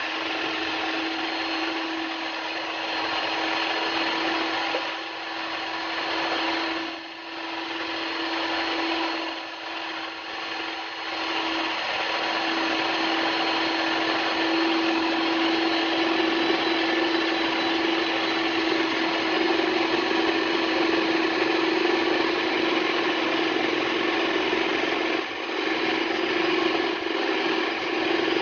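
Electric hand mixer on a stand base running steadily, its beaters whirring through cake batter in a plastic bowl with a steady motor hum, dipping briefly in level a few times.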